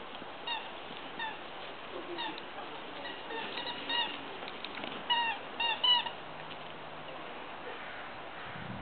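A puppy giving a series of short, high-pitched squeaky whimpers, each with a quick downward bend and coming in irregular clusters.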